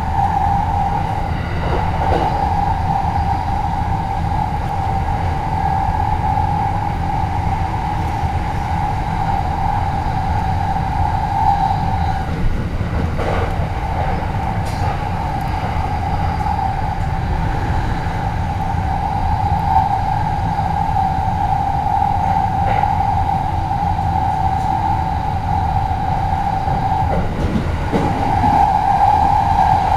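Inside a moving commuter train: the steady low rumble of the car running, with a constant whine over it that breaks off briefly three times.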